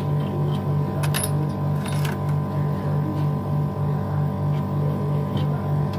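Split air-conditioner outdoor unit running: a steady low hum that pulses several times a second, with steady higher tones above it. A few sharp metal clicks about one and two seconds in come from an Allen key being fitted into the service valve.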